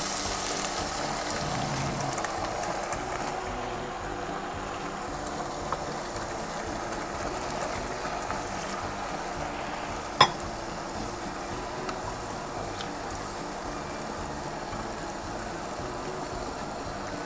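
Sauce being poured into a hot wok of chicken liver and vegetables, sizzling at first and fading over the first few seconds into a quieter steady simmer as it is stirred with a wooden spatula. One sharp knock about ten seconds in.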